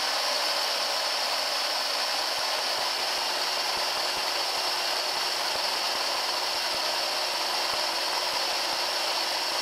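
Eight 775-size 12 V DC motors running a 3D-printed multi-stage reduction gearbox, a steady high whine, as it winds up a rope lifting a load of about 20 kg.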